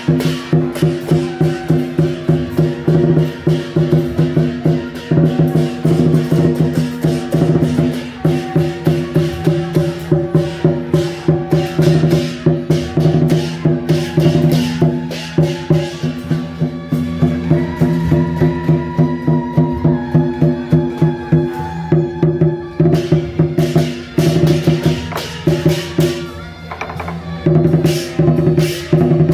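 Taiwanese temple-procession music accompanying deity-general puppets and a lion dance: fast, even drum and cymbal beats over a sustained droning melody, with a brief break near the end before the beat resumes.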